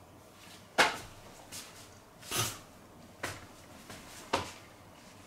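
Four short knocks and taps spread over about four seconds, the first the loudest, with quiet room tone between them.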